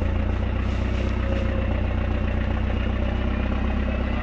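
Off-road 4x4's engine running steadily at low revs as the vehicle crawls up out of a water-filled mud ditch.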